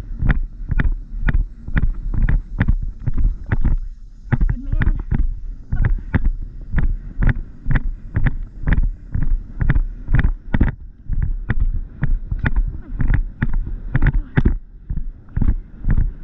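A horse's hooves drumming on turf in a steady rhythm at a canter, about two strides a second, with a low wind rumble on the microphone.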